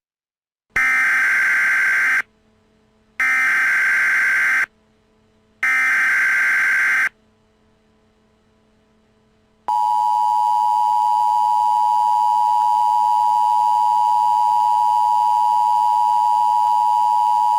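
Emergency Alert System tones: three short bursts of the SAME digital header, a screechy data warble, about a second apart. After a pause comes the steady two-tone EAS attention signal, held for about eight seconds, marking the start of an emergency alert.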